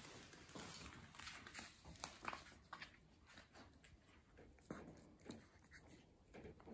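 Faint, scattered ticks and taps of papillon puppies' claws and paws on a laminate floor as they scamper about.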